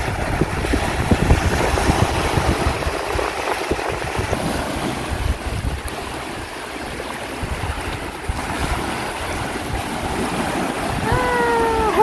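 Small surf washing in over a flat, shallow sandy beach, with wind rumbling on the microphone. Near the end, a short falling voice exclamation.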